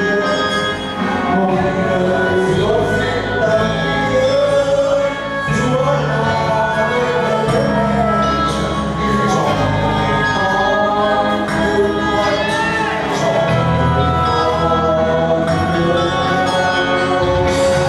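A group singing together into a microphone over an amplified music backing track with a steady bass line.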